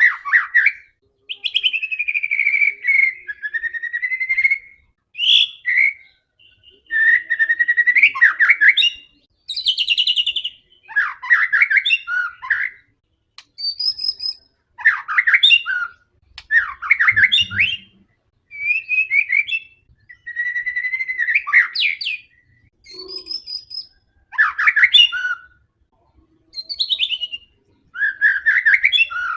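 White-rumped shama (murai batu) singing in full, aggressive song: a continuous run of varied phrases about a second or two long, fast trills and clear whistled notes, with short pauses between them.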